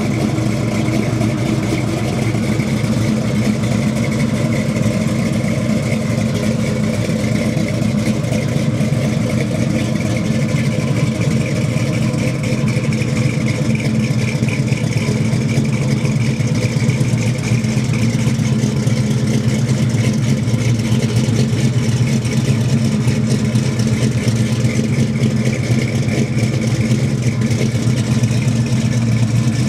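Chevrolet 468 cubic-inch big-block V8 in a 1970 Chevelle idling steadily through its exhaust, with an even pulse and no revving.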